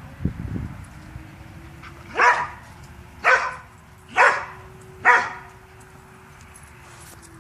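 A springer spaniel barks four times, about a second apart, each bark short and sharp. A low thump comes just before the first bark.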